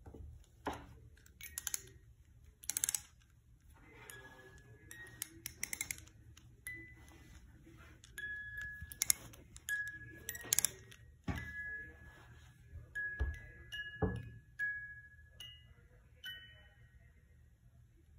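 Wind-up music box inside a plush teddy bear: its key is wound in short bursts of rapid ratcheting clicks, and the music box plucks scattered single chiming notes. A few soft thumps come from handling the bear about two thirds of the way in.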